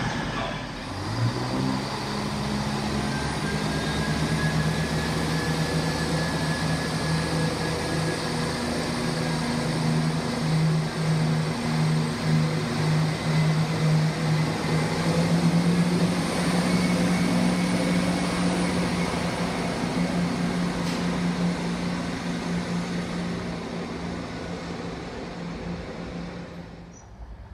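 CrossCountry Voyager diesel multiple unit pulling away, its underfloor diesel engines revving up about a second in, then droning steadily before fading as the train leaves.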